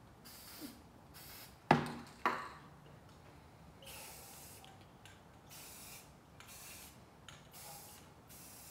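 Aerosol spray paint can hissing in short sprays, about ten bursts of half a second or less. Two sharp knocks about two seconds in are the loudest sounds.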